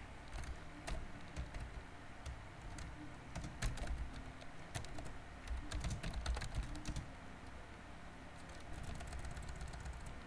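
Typing on a computer keyboard: irregular keystroke clicks in quick runs broken by short pauses.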